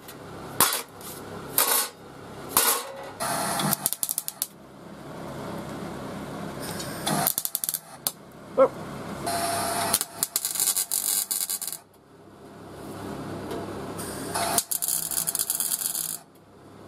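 Steel plates clanking as they are handled, then an angle grinder cutting the steel and a MIG welder crackling as the plates are welded together.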